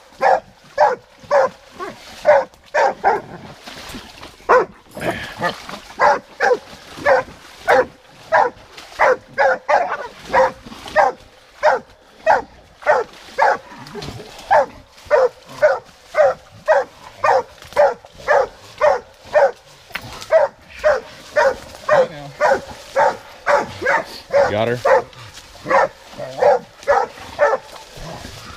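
A hunting hound barking steadily at a bayed wild boar hog, about two barks a second without a break.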